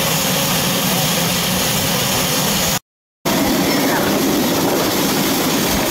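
Steady hiss and rumble of a ride-on miniature steam train under way, the small live-steam locomotive venting steam. The sound cuts out completely for about half a second around the middle.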